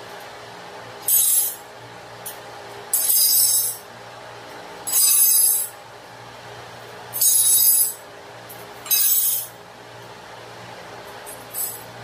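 A steel spoon pushed by a pet lory scraping and clinking across a tiled floor, in short scrapes of half a second to a second that come about every two seconds.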